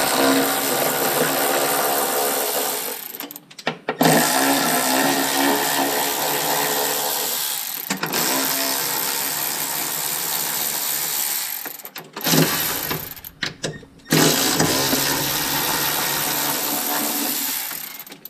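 Red cordless electric ratchet running in four spells of about four seconds each, plus a short burst partway through, spinning bolts out of the skid steer's old warning-light panel to remove it.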